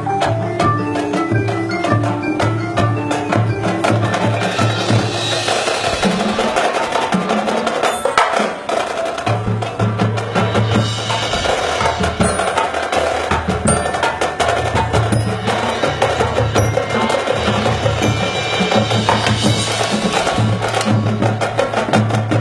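High school marching band playing its field show music, percussion-heavy, with low notes pulsing in a steady rhythm. The low pulse drops out for a few seconds in the middle, then returns.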